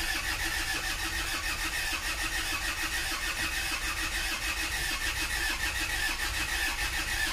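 Starter motor cranking a freshly rebuilt diesel car engine with a steady, even rhythm; the engine does not catch, and the tachometer stays at zero with the battery and oil warning lights on.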